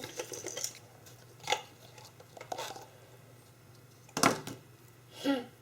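A few light clicks and knocks from small plastic jars being handled and opened, the loudest about four seconds in, then a brief voice sound near the end.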